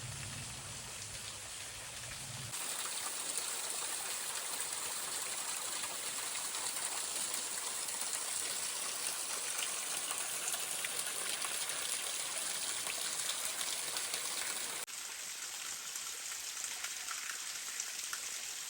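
Waterfall rushing steadily over rocks, a dense even hiss of falling water. The sound jumps abruptly about two and a half seconds in, growing louder, and again near the end, growing a little quieter, as separate takes of the falls follow one another.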